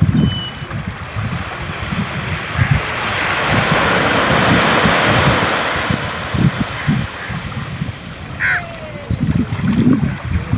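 Beach surf washing ashore, one wave swelling up and easing off through the middle, with wind buffeting the microphone throughout. A single brief high cry comes about eight and a half seconds in.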